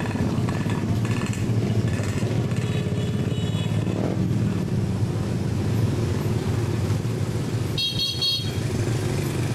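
Many motorcycle engines running in slow, crowded traffic, with horns honking now and then and a short, high-pitched horn toot about eight seconds in.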